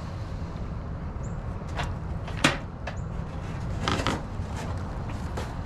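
Fishing rods being handled against a plastic wheeled trash bin and bagged trash: a few knocks and clatters, the loudest about two and a half seconds in and a short cluster about four seconds in, over a steady low rumble.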